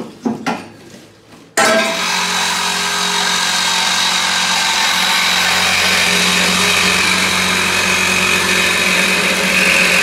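Handheld cordless power saw cutting through the truck's steel exhaust pipe: a few knocks, then the saw starts abruptly about a second and a half in and runs steadily through the cut.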